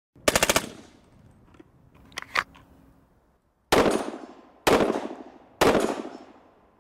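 A rapid burst of gunfire, then a few sharp clicks, then three single heavy shots about a second apart, each echoing away.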